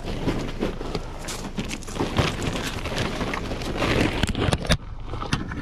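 Woven plastic IKEA bag rustling and crinkling as it is pushed and wedged into a car seat, with the cardboard figure boxes inside scraping and knocking against each other. A few sharper knocks come a little after four seconds in.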